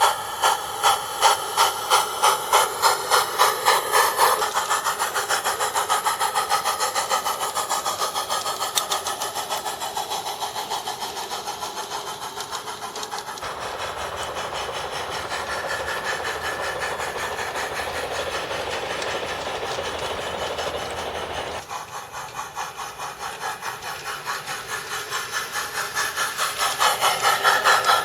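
G-scale model steam locomotive's sound unit chuffing in an even rhythm of about three beats a second, with hiss, as the model runs along the track. The sound shifts abruptly three times.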